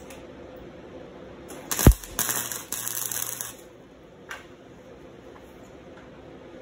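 Electric arc welding, tacking a steel chain link to a steel sheet. The arc strikes with a sharp crack about two seconds in, then crackles and sputters for about a second and a half, with one short break, before stopping. A small click follows.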